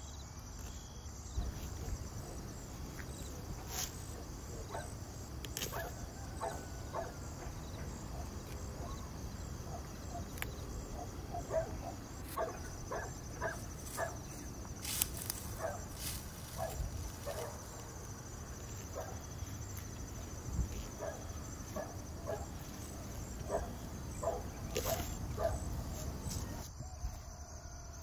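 Crickets chirping steadily in a rural outdoor soundscape, with many short animal calls repeated through most of it and a few sharp clicks.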